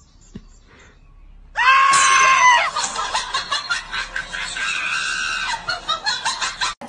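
A loud, high-pitched cry starts about a second and a half in, holds for about a second and falls at its end. A string of shorter squealing cries follows.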